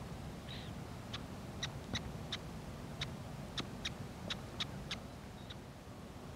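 Sharp, short bird call notes ticking irregularly, about two or three a second, with a brief rounded call near the start, over a steady low background rumble.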